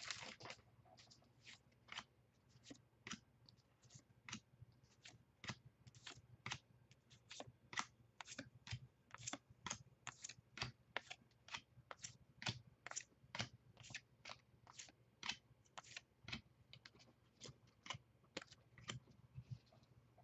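Stack of baseball trading cards being thumbed through one at a time, a faint flick of card stock for each card, about twice a second, with a slightly louder rustle of the cards at the very start.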